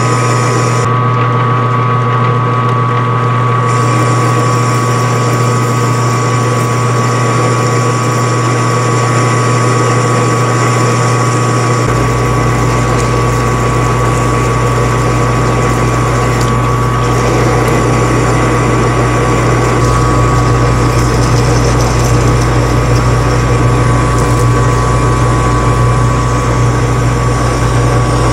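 A 12x36 metal lathe running under power while it cuts a scrap steel ring, its gearing giving a steady whine. A deeper hum joins abruptly about twelve seconds in.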